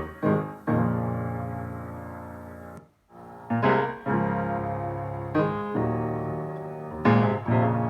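Recorded music played back through a loudspeaker: sustained piano chords that cut off to near silence for a moment just before three seconds in, then come back.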